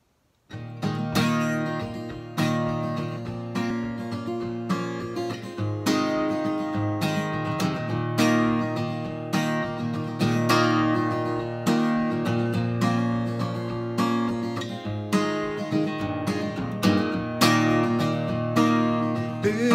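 Acoustic guitar strummed by hand in a steady rhythm of chords, the instrumental intro of a song. It starts about half a second in, with no singing over it.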